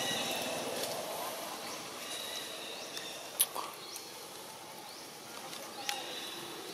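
Outdoor natural ambience: a steady hiss with faint, high, short chirps coming and going, and a sharp click about halfway through, with a smaller one near the end.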